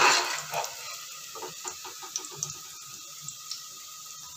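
Hot ghee sizzling and crackling in a pressure cooker as fried onions are scooped out with a spoon, a brief scrape and stir at the start, then the sizzle quieter with scattered pops.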